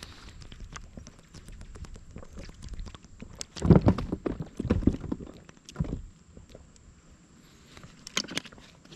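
Irregular clicks and knocks of gear and hands against a kayak, with a cluster of louder, heavier thumps about four to six seconds in and a few more clicks near the end.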